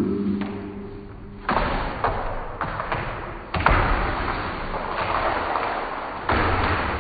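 Sound-effect thuds: three heavy, sudden hits about two seconds apart, each trailing off in a hissy smear.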